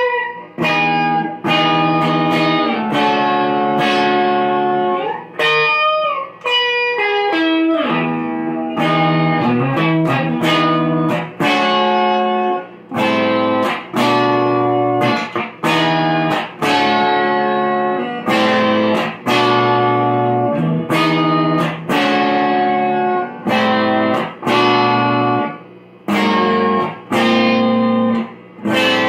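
Fender Telecaster electric guitar playing a pop chord progression built on major-seventh and slash chords. Chords are struck about once a second and left to ring briefly before the next, with a quicker run of higher single notes a few seconds in.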